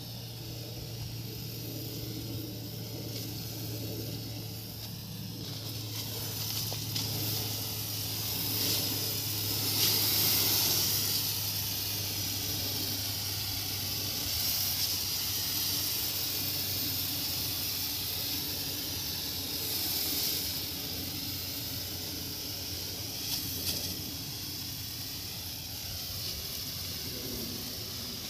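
Tractor-powered pesticide sprayer at work: a steady low engine hum under a loud hiss of spray that swells and fades, strongest about ten seconds in.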